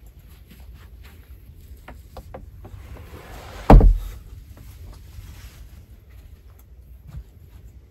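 A heavy wooden plank door is pulled shut with one loud, deep thud about halfway through, inside a softer scraping noise. Light knocks and footstep-like clicks come before and after it.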